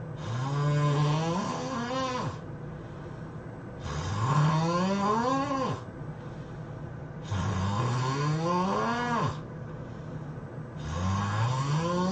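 A man snoring loudly, four snores about three and a half seconds apart. Each snore rises steadily in pitch and then drops off abruptly as it ends.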